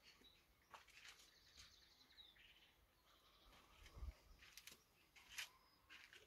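Near silence: faint background with a few soft ticks and a low bump about four seconds in.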